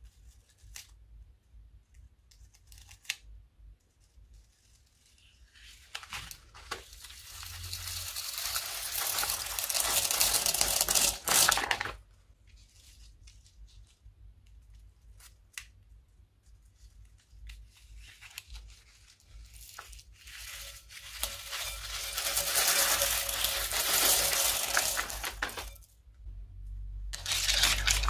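Plastic piping bags crinkling as they are squeezed, with beads and foam balls pouring out and pattering onto slime, in two long stretches that build up and then stop suddenly. Between them, scattered small clicks of beads dropping.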